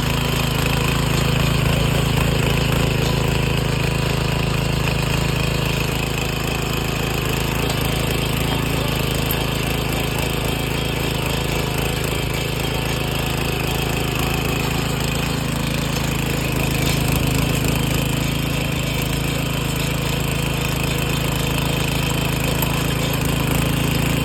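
Taral motor hoe (rotary tiller) running steadily, its engine holding one even speed.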